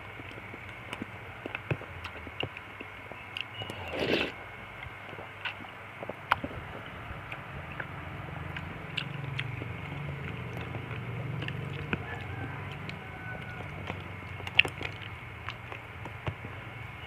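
A person eating fruit soup with nata de coco, chewing and biting close to the microphone with many small wet clicks, and one louder short burst about four seconds in. A faint steady high tone sounds in the background.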